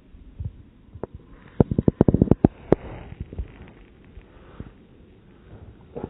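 A quick run of low thuds and knocks, about a dozen packed into a second and a half, with a few scattered single knocks before and after.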